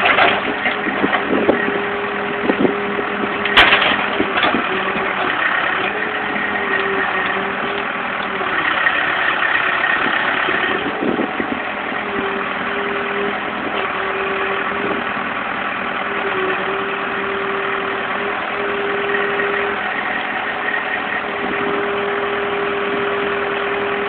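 Backhoe engine running steadily with a constant droning tone, broken by a few sharp knocks, the loudest about three and a half seconds in.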